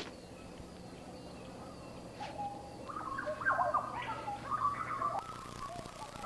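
Birds calling: several overlapping short whistles and warbling chirps that begin about three seconds in, over a faint steady low hum.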